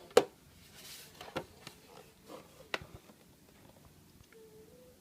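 A few sharp clicks and knocks of something being handled: a loud one just after the start, then quieter ones about a second and a half and nearly three seconds in. A short, faint tone sounds near the end.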